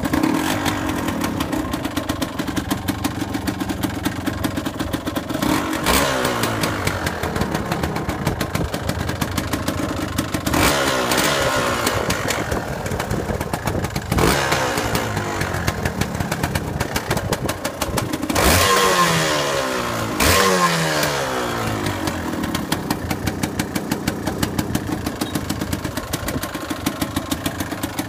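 Yamaha Lanza's two-stroke single-cylinder engine idling through its silencer with an even popping beat. It is blipped about five times, each rev rising sharply and falling back to idle.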